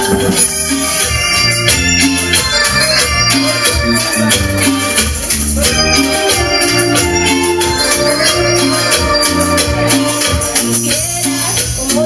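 Band playing an instrumental passage of Latin dance music: an electronic keyboard melody over a repeating bass line, with a steady shaker rhythm.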